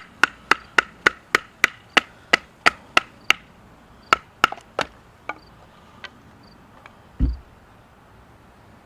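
Wooden baton rapidly tapping the spine of a fully serrated Ontario Utilitac pocket knife, driving it through a stick to quarter it: an even run of sharp knocks, about three to four a second, then after a short pause three more, and a single dull thud about seven seconds in.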